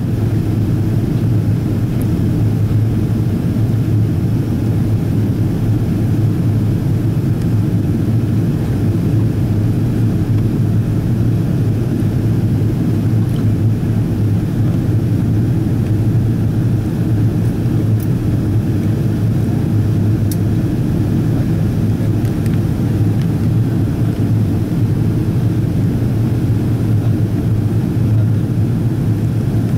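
Steady low rumble of a Boeing 777-200ER cabin in flight, the engines and airflow heard from inside, with a few faint ticks along the way.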